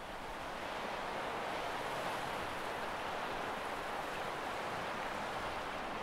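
Steady rushing outdoor ambience, a soft even hiss that swells in over the first second and then holds level.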